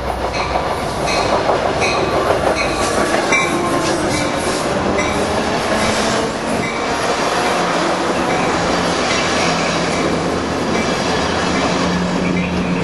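Amtrak Pacific Surfliner passenger train rolling past close by, its wheels clacking over rail joints in a repeated rhythm, with a faint squeal from the wheels.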